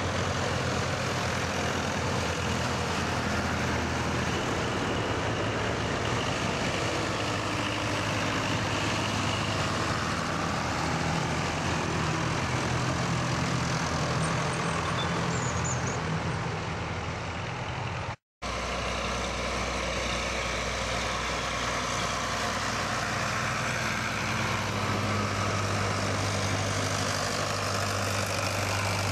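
Several tractor engines running steadily as tractors drive past in a convoy. The sound drops out completely for a split second about 18 seconds in, and the engine note is deeper afterwards.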